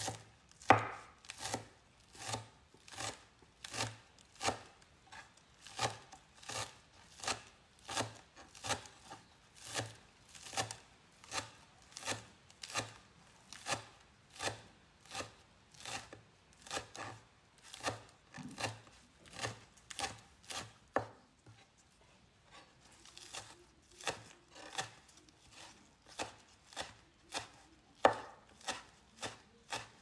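Large kitchen knife chopping green onions and coriander finely on a wooden cutting board: steady, evenly spaced strokes, about three every two seconds. About two-thirds through the strokes stop briefly, then resume less regularly.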